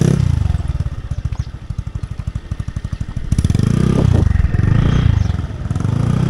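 Small motorcycle engine running at low speed, its separate firing pulses easy to hear. It eases off, then picks up again about three seconds in.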